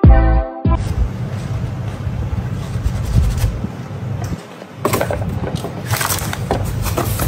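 Background music cuts off within the first second. Then a rough, live-sounding stretch of handling and rustling noise over a low rumble, with a busier patch of crackly rustles near the end.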